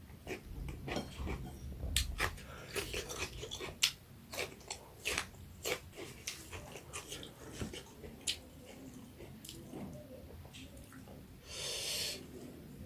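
Close-up mukbang chewing and eating: many small wet clicks and smacks of food being bitten and chewed, with a short hissing burst near the end.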